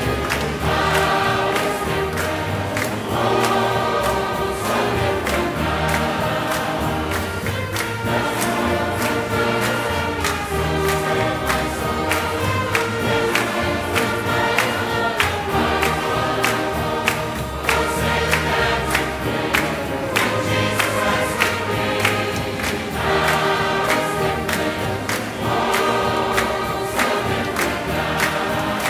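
Church choir and congregation singing a gospel song together over instrumental accompaniment, with a bass line and a steady beat.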